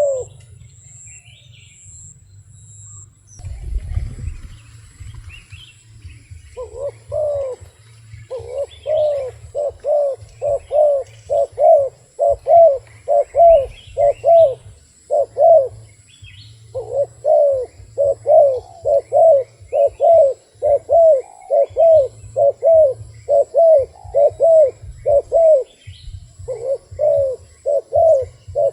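A wild dove cooing in long runs of short rising-and-falling notes, about two a second, with brief pauses between runs. Small birds chirp faintly in the background.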